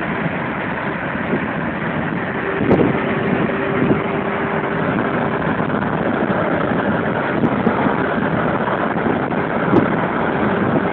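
A car being driven: a steady mix of road, engine and wind noise, with a faint hum about two and a half seconds in.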